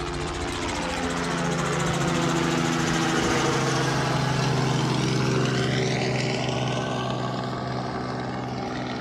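A single-engine Cessna's piston engine and propeller running as it taxis past at close range. It grows louder toward the middle, its pitch drops a little as it goes by, and then it slowly fades.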